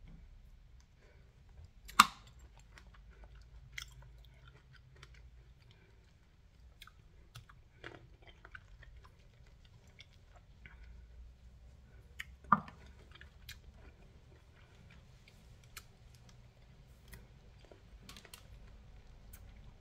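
Close-up chewing and wet mouth sounds of a person eating fresh cherries, with many small irregular clicks and two much louder sharp smacks, about two seconds in and again near the middle.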